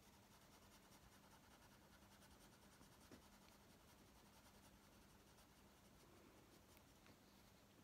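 Faint scratching of a Prismacolor cool grey coloured pencil on colouring-book paper in quick small strokes, building up and blending the grey shading, over a faint steady low hum.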